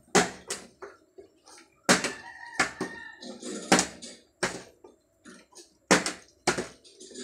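Plastic water bottles flipped and landing on a tiled floor: a series of sharp knocks and clatters as they hit, bounce and tip over.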